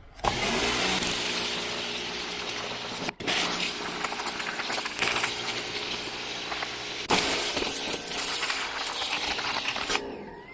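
RYOBI electric pressure washer running, its water jet hissing onto the boat's fibreglass deck over a steady pump-motor hum. The spray starts just after the beginning, breaks off for a moment about three seconds in, and stops near the end.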